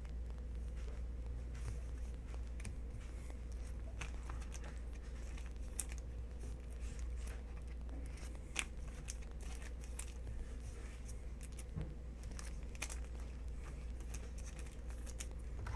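Trading cards and a foil card pack being handled by hand: scattered crinkles, rustles and sharp little clicks and taps, with a steady low hum underneath.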